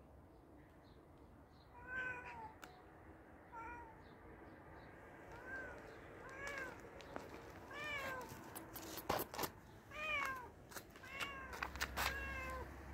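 A hungry tabby cat meowing repeatedly, about nine short meows that come closer together toward the end. A few sharp clicks sound about nine seconds in.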